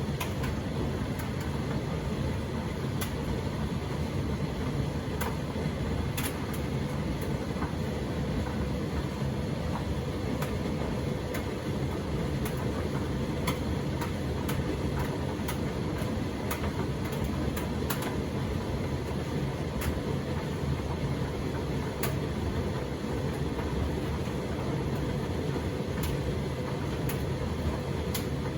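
Indesit EDCE85 condenser tumble dryer running with a full load: a steady drum-and-motor hum, with scattered light clicks of the load tumbling against the drum.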